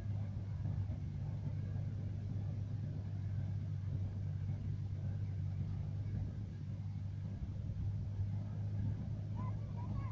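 Tractor engine running steadily with a low, even drone as it drives a hay baler working in the field.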